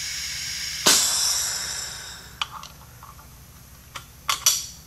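Compressed air hissing steadily through a two-gauge leak-down tester on a 426 Hemi cylinder that reads about 0% leakage. About a second in comes a sudden louder rush of air as the tester is disconnected; it fades over about a second, and a few light metallic clicks follow as the fittings are handled.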